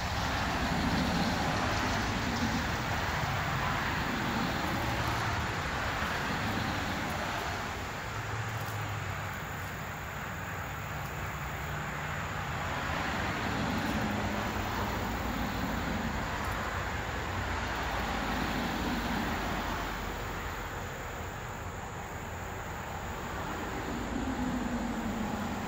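Steady outdoor background rush over a low rumble, swelling and easing every few seconds.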